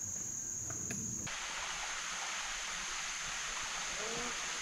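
Woodland ambience: a steady high-pitched insect drone for about the first second, then a sudden change to an even steady hiss, with two short low notes near the end.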